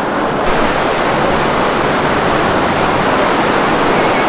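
Sea surf breaking and washing up a sandy beach: a loud, steady rush of foaming water.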